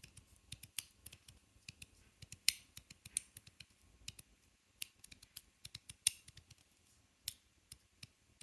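GD EDC Samsara 2.0 aluminum magnetic slider fidget being slid back and forth, its magnets snapping the halves into place with sharp clicks, several a second, a few of them louder.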